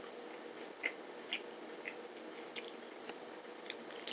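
Person chewing a spicy pork and beef meat snack stick, with soft, wet mouth clicks every half second to a second, over a faint steady hum.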